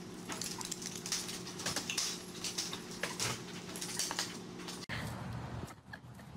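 Small dogs' claws clicking and scrabbling on a tile floor in quick irregular taps, over a steady low electrical hum. The taps and hum stop abruptly about five seconds in.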